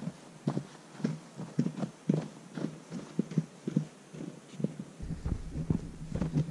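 Footsteps of people walking on a trail covered in light fresh snow, at a steady pace of about two to three steps a second, over a faint low steady hum.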